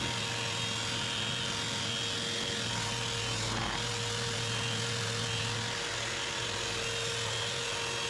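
Electric floor sander running steadily on parquet, a constant motor hum under a rough sanding noise.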